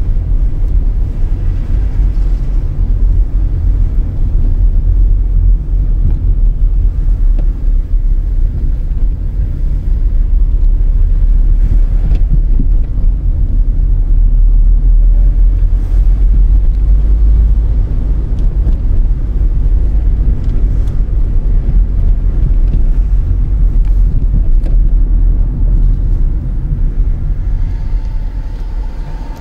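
Car driving, heard from inside the cabin: a steady low rumble of engine and tyres on the road, easing slightly near the end.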